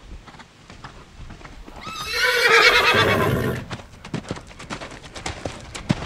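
A horse whinnying once, loud and quavering, starting about two seconds in and lasting about a second and a half, over a run of galloping hoofbeats.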